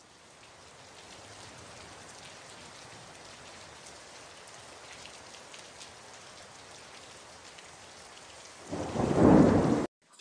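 Thin stream of tap water running from a kitchen faucet into a stainless steel sink, a steady even splashing hiss. Near the end, a much louder burst of noise lasts about a second and cuts off abruptly.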